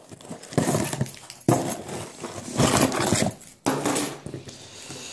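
Cardboard mailing box being handled and shifted on a wooden tabletop: a series of rustling, scraping bursts, about four of them roughly a second apart.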